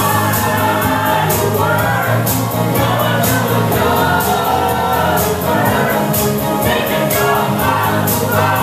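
A song with a group of voices singing together over a steady drum beat.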